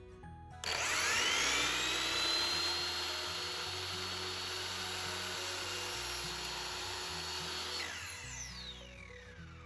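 Ridgid 10-inch sliding miter saw motor starting with a quickly rising whine, running at a steady high whine for about seven seconds, then coasting down with a falling whine near the end. Background music plays throughout.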